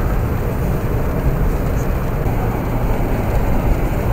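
A car driving along a snow-covered road, heard from inside the cabin: steady, low road noise from the engine and tyres.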